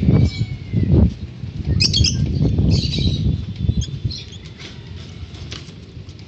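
Lovebird wings flapping in short fluttery bursts, with a cluster of sharp, high chirps about two seconds in.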